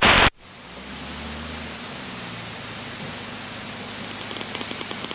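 A radio transmission on the aircraft intercom cuts off sharply right at the start, leaving a steady hiss of static on the headset channel. The taxiing plane's engine hums faintly beneath it, and a fast regular ticking comes in near the end.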